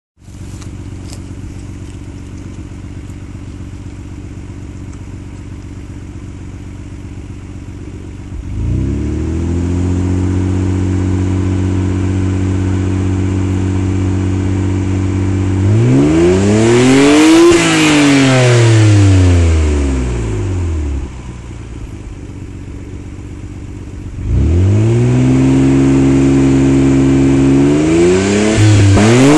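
Nissan BNR32 Skyline GT-R's RB26DETT twin-turbo straight-six idling, stepped up to a steady higher speed about eight seconds in, revved up and back down once around the middle, back to idle, then raised and held again with a small blip near the end. The engine revs cleanly without the abnormal noise on blipping, whose cause was a seized viscous coupling fan.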